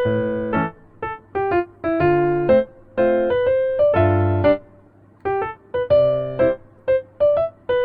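Background music on a piano-type keyboard: short, detached notes and chords in a repeating pattern.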